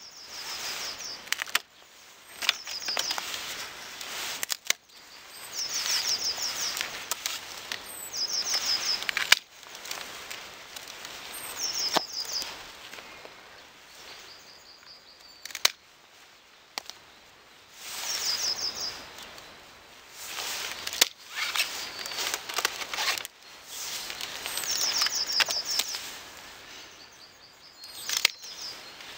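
Hand pruning secateurs snipping rose canes, a few sharp clicks among the rustle of branches being handled and pulled from the bush. A bird chirps short high phrases every few seconds.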